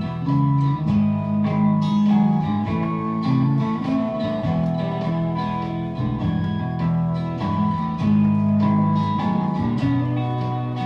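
Guitar-led instrumental passage of a song, played back from a lathe-cut picture disc on a turntable.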